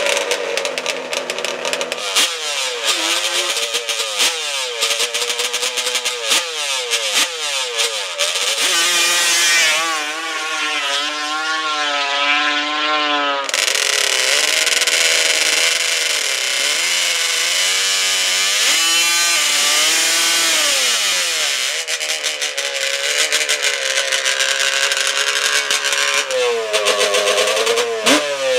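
Two-stroke twin engines of Banshee-powered drag trikes revving hard, with the pitch climbing and dropping again and again as the rear tire is spun in a smoky burnout. There is a spell of held high revs about a third of the way in.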